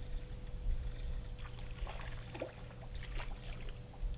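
Ambient sound aboard a small fishing boat on the water: a steady low rumble with a faint, steady whine, and a few light clicks and taps about two to three and a half seconds in.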